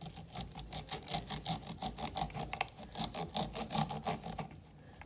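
A knife blade scraping down an ear of fresh white corn, cutting the kernels off onto a wooden cutting board. It goes in quick rasping strokes, about four or five a second, and stops about four and a half seconds in.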